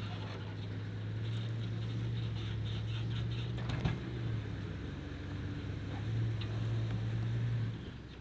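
Vehicle engine running steadily with a low hum, with a single knock about four seconds in; the hum dies away just before the end.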